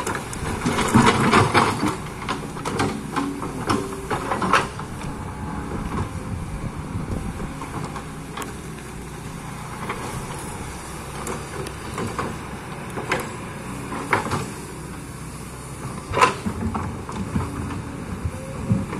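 Excavator engine running steadily while the machine works soil, with a cluster of knocks and scrapes in the first few seconds and single sharp knocks near the middle and again later.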